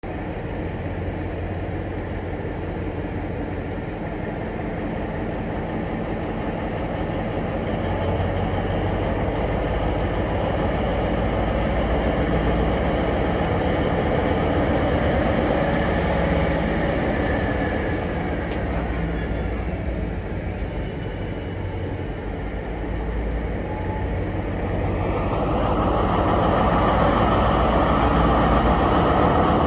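Diesel railway engine running with a steady low rumble, growing louder over the last few seconds.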